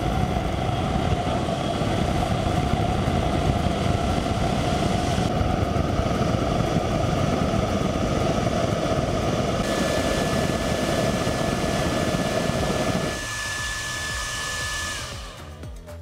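A homemade jet engine built around a hairdryer fan runs with its flame lit: a steady fan whine over a loud rush of air and burning fuel. About thirteen seconds in, the deep rush drops away. Near the end the whine falls off as the fan winds down.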